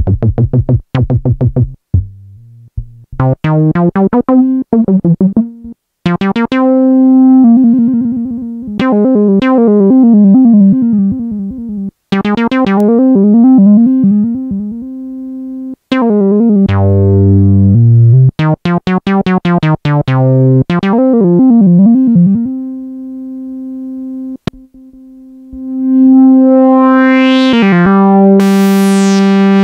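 Korg Monologue analog monophonic synthesizer playing short sequenced bass and lead lines, the filter sweeping each note's tone up and down, in several phrases separated by brief pauses. Near the end a rising filter sweep leads into a long held note.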